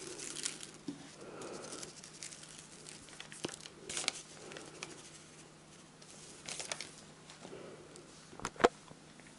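Spice sachet of black pepper crinkling and tearing as it is handled and opened, in scattered short rustles and clicks.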